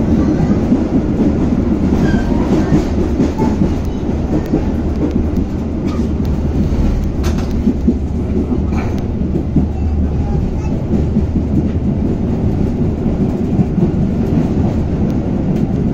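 Passenger railway coach rolling along the track, heard from inside the car: a steady rumble of wheels on rail, with a few sharp clicks near the middle.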